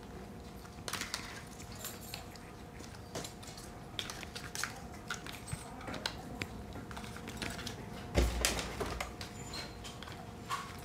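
Plastic landing legs being pushed and snapped into a toy quadcopter's plastic body: scattered light clicks and taps, with a louder knock and rustle about eight seconds in.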